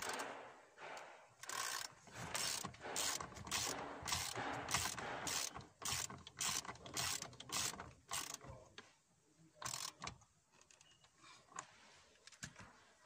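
Hand socket ratchet clicking in a run of regular strokes, about two to three a second, as the steering wheel's centre nut is worked on; the strokes stop about eight seconds in, followed by a few lighter clicks.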